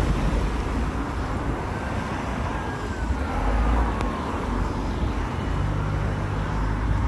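Road traffic going by, with wind rumbling on the microphone; a falling whine of a passing vehicle about two to three seconds in.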